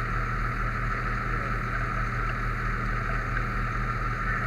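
Fire truck engine running, heard from inside the cab as a steady low hum with a steady high whine over it.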